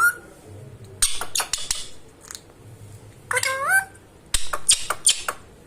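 Pet Indian ringneck parrot giving one short wavering whistled call about midway, between two bursts of short sharp high-pitched sounds.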